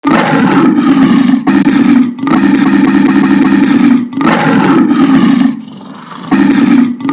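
Lion roaring: a run of about six loud, sustained roars, each from under a second to about two seconds long, with brief gaps between them and a quieter stretch shortly before the end.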